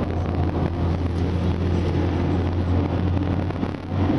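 Ford Transit van's 170 hp turbodiesel engine running at speed, heard from inside the cab as a steady low drone over road and wind noise.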